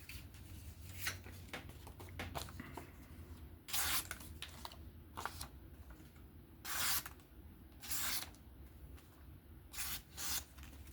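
A folding knife's freshly stropped 154CM blade slicing through thin paper to test the edge: about five short papery swishes at uneven intervals, the first nearly four seconds in and two close together near the end, with light handling clicks between.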